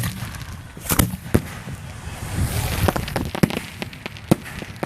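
Aerial firework shells going off: a run of sharp bangs spaced roughly a second apart, with smaller pops between them.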